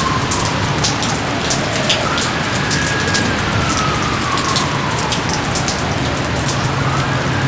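Steady heavy rain with close drops and drips pattering. Behind it, a faint thin tone rises, holds, then slowly falls, about once every four to five seconds.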